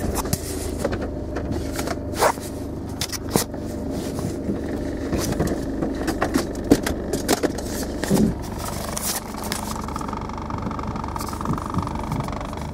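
Car driving, heard from inside the cabin: a steady low engine and road rumble with frequent sharp knocks and rubbing from the camera being handled against clothing. A steadier higher hum joins in about nine seconds in.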